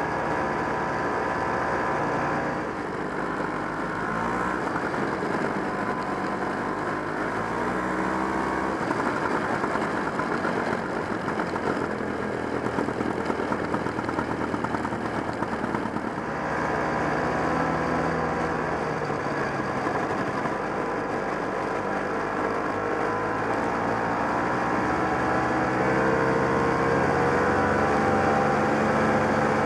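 1969 Polaris Mustang snowmobile's JLO 372 two-stroke engine running while the sled is ridden. The engine note drops about two and a half seconds in, runs rougher and less even until about sixteen seconds, then picks up and climbs in pitch near the end.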